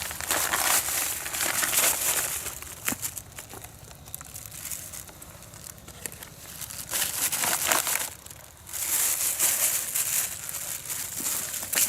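Rustling and crinkling in several bursts: one at the start, another around seven seconds in, and a longer one from about nine seconds, with scattered clicks between.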